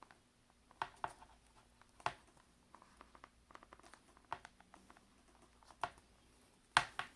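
Small hand tool clicking and scraping against the inside of an iPad Air 2 as it is worked under the battery to pry it up: scattered faint clicks, with two sharper ones near the end.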